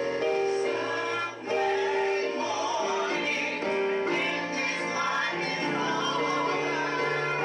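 Church choir singing with keyboard accompaniment; sustained held chords carry the music, and the voices come in more strongly partway through.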